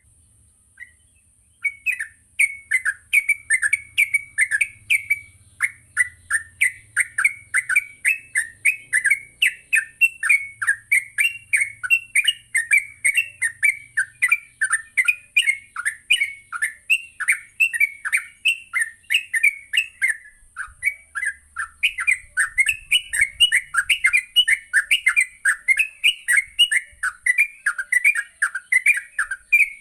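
Sooty-headed bulbul (trucuk) singing in a fast, unbroken run of short chattering notes, the rapid 'ngropel' style of song, with one short pause soon after the start.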